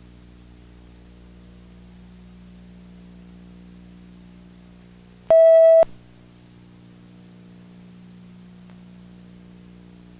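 A faint, steady electrical hum with overtones, broken about halfway by one loud electronic beep that lasts about half a second and cuts off suddenly.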